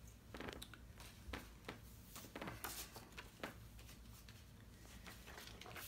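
Plastic Blu-ray cases being handled: a string of light clicks and rustles, thickest in the first three and a half seconds and sparser after.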